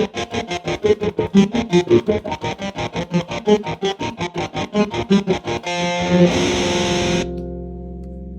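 Electric guitar played through a telephone-style effect unit, with fast, evenly repeated picked notes at about eight a second. About six seconds in it ends on a held, distorted chord that rings out and fades.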